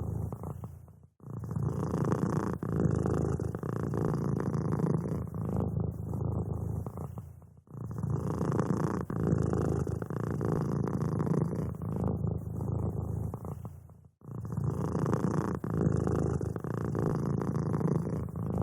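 Domestic cat purring steadily, with brief breaks about every six and a half seconds, three times in all.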